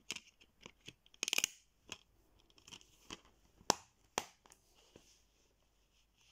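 Plastic DVD case being handled: a string of sharp plastic clicks, with a short rattle about a second in and the loudest clicks in the middle, as the disc is pressed onto its hub and the case is snapped shut.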